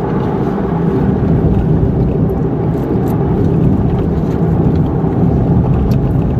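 Steady rumble of a moving car heard from inside the cabin: engine and road noise while driving.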